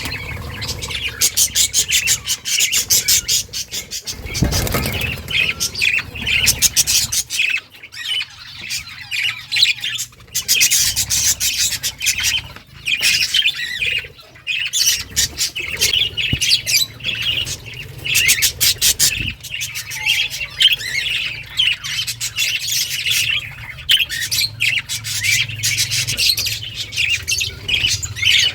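A colony of budgerigars chattering, with many birds chirping and squawking at once in a dense, continuous warble of sharp, quick calls. A brief low rumble comes about four seconds in.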